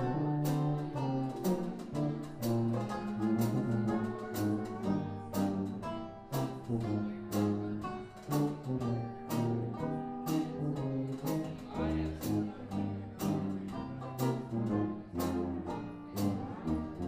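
A live 1920s-style jazz band playing an instrumental passage: sousaphone bass line, lap steel guitar, archtop guitar and a drum kit keeping a steady beat on the cymbals.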